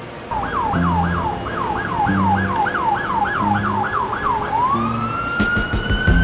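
Emergency-vehicle siren on a fast yelp, sweeping up and down about three times a second, then switching to one slow rising wail near the end. Low bass notes play underneath.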